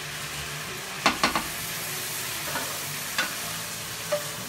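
Steak bites and mushrooms sizzling in a frying pan, with a few sharp clinks of a utensil against the pan: two close together about a second in, then two more later on.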